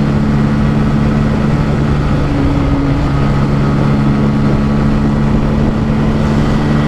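Bajaj Pulsar N160's single-cylinder engine running hard in fifth gear near its top speed, a steady drone, with wind rushing over the microphone.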